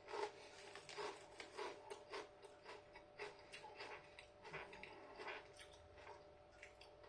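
Chewing a crunchy hand-cooked potato crisp: a run of small crunches, about two to three a second.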